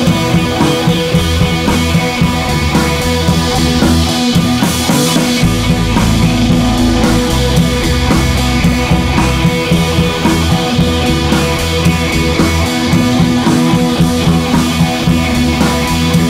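Rock music with guitar and drums, a steady beat throughout.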